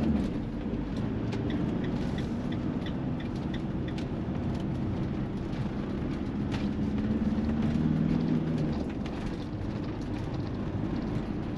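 Motorhome engine and road noise heard from inside the cab while driving, with the engine hum growing louder for a couple of seconds around seven to nine seconds in.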